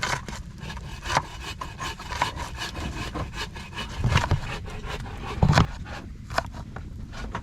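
Buck knife dicing an onion into tiny pieces: quick, irregular chopping taps, with two heavier knocks about four and five and a half seconds in.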